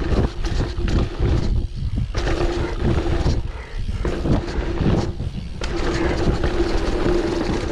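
Octane One Void dirt jump bike ridden over a dirt jump line: tyres rolling on packed dirt with heavy wind rumble on the action camera's microphone, and a steady hum that comes and goes, dropping out briefly a few times.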